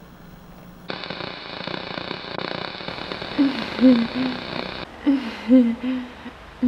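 Television static hiss that starts about a second in and cuts off sharply just before the five-second mark. Over its last part and after it come several short, low voice-like sounds.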